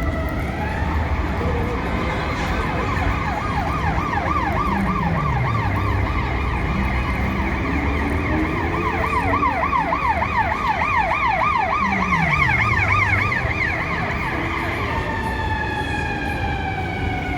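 Emergency vehicle siren in city traffic: a fast yelp sweeping up and down about four times a second, changing to slower falling wails near the end, over a steady low traffic rumble.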